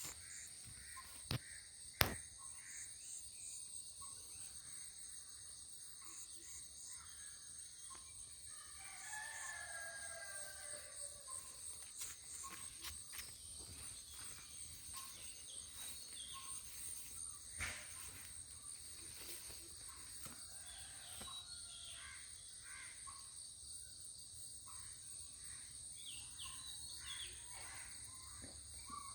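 Steady, shrill insect chorus in rural farmland, with a rooster crowing once, faintly, about nine seconds in. A few sharp clicks and small bird chirps come through near the end.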